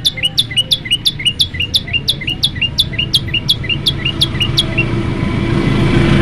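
Common tailorbird giving a rapid, even series of sharp, down-sweeping chip notes, about four a second, which stop about five seconds in. An engine-like rumble grows louder near the end.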